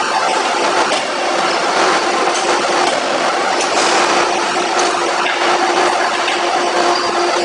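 Forge-shop machinery running with a steady hum, loud and even throughout, with a few light knocks as the hot workpiece is handled on the forging hammer's anvil.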